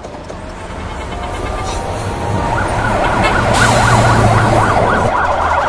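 Street traffic noise with a low engine rumble, growing louder throughout. A little over halfway in, an emergency-vehicle siren joins it, wailing in a fast up-and-down yelp about four times a second.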